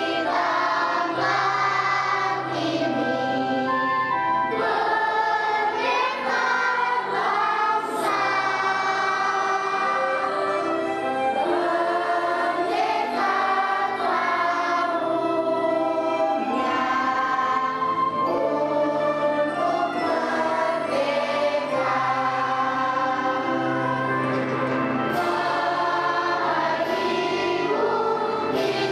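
A group of young children singing together in chorus, with steady instrumental accompaniment underneath.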